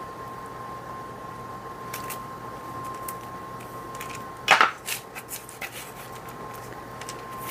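Parchment paper crinkling and rustling on a baking sheet while cookie dough is cut and the scraps are pulled away, with a loud rustle about four and a half seconds in followed by several light ticks and clicks. A faint steady high tone runs underneath.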